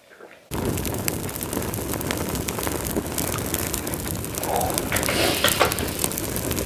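Fire sound effect: a steady rush of burning-flame noise peppered with crackles, cutting in suddenly about half a second in.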